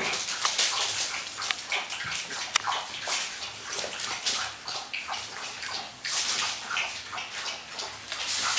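Five-week-old French Bulldog puppies scuffling and playing on a wooden floor: a continuous, irregular scrabbling and rustling, dotted with small clicks.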